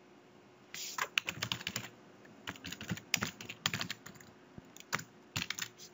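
Typing on a computer keyboard: quick runs of keystrokes in two main bursts with short pauses between, then a few single keystrokes near the end.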